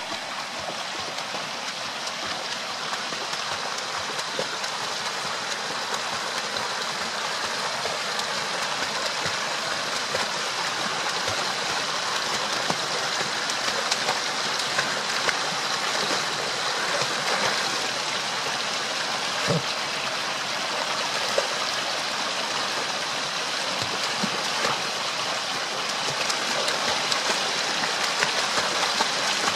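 Shallow, rocky creek rushing steadily over stones and a small cascade. Scattered small splashes come from a dog wading and pawing in the water.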